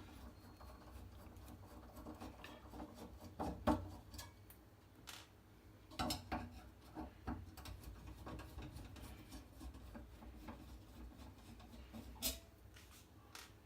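Screws being loosened on a gas stove's top panel with a screwdriver: faint scraping and scattered sharp clicks and knocks of small metal parts.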